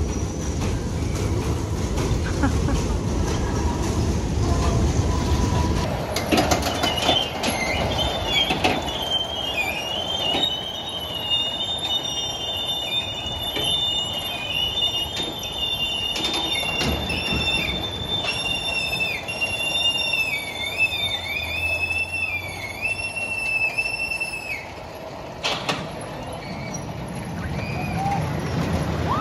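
Amusement-park ride cars running on their rails: a low rumble, then a long, high squeal of the wheels on the track that wavers up and down in pitch before cutting off, with a sharp click a few seconds before the end.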